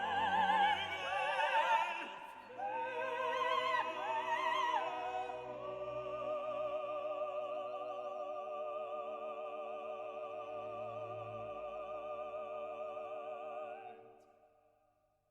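Operatic singing with strong vibrato over classical music, settling into one long held note that fades away near the end.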